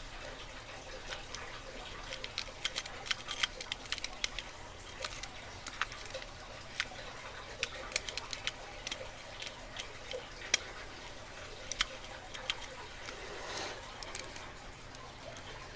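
Lock picking: a metal pick and tension wrench working in a lock's keyway, making irregular small clicks and ticks as the pins are worked, with a short scrape near the end.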